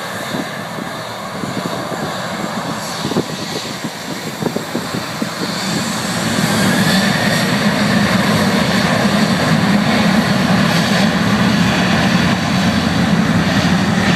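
A Boeing 737's jet engines spooling up to takeoff thrust. The noise rises about six seconds in and then holds steady and loud.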